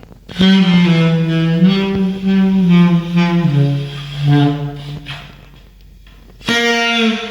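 Recorded music played from a CD through a hi-fi system with horn speakers: a lead melody of long held notes stepping from pitch to pitch over accompaniment. It drops off for about a second and a half near the end, then comes back in.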